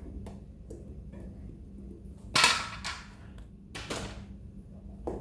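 Sharp knocks of thrown objects striking and bouncing: one loud hit a little over two seconds in with a brief ringing tail, a smaller knock half a second later, and another about a second after that.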